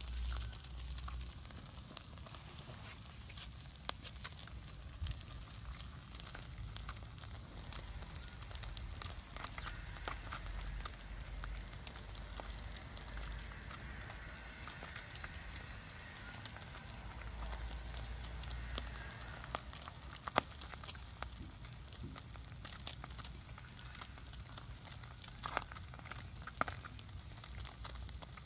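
Small wood fire crackling, with scattered sharp pops, as whole fish roast on sticks over the embers.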